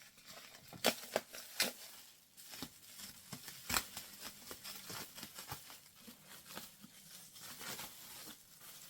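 Wrapping around a hardback book being handled and pulled off, rustling and crinkling, with sharp irregular crackles, the loudest about one second and four seconds in.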